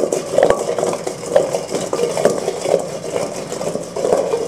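Oiled fingerling potato halves tumbling and knocking against a stainless steel mixing bowl as it is shaken to toss them. The bowl is shaken in repeated strokes, about two a second, each a swish of tumbling potatoes with sharp clicks against the metal.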